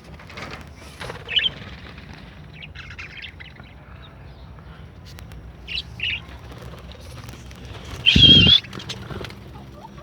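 Small pet parrots such as lovebirds giving scattered short chirps and squawks, with one loud, harsh squawk about eight seconds in.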